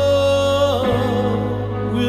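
Worship band playing a slow song, with a singer holding one long note that ends just under a second in, over a steady low keyboard tone.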